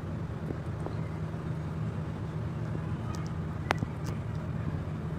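Steady low background hum, with a few faint clicks and one sharper click a little before four seconds in.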